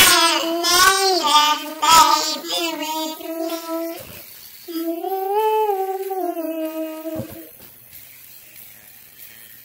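Women singing long wordless held notes in two phrases, with a short break about four seconds in. The singing stops after about seven seconds, leaving quiet room tone.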